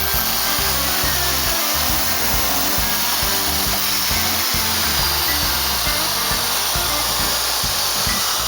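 Electric hand drill with a diamond bit grinding a hole through a pot, a steady gritty hiss that runs without a break. Background music plays underneath.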